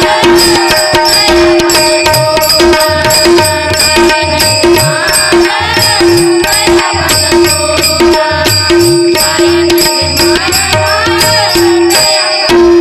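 Instrumental passage of a devotional bhajan: steady held melody notes over a quick percussion rhythm with tabla.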